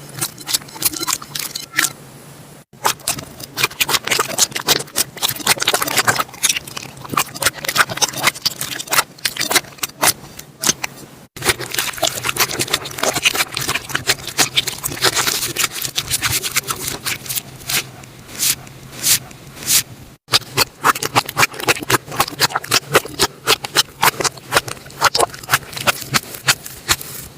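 Slime being squeezed and worked by hand, a dense stream of small sticky pops and crackles. It is broken by three very brief dropouts, at cuts between clips.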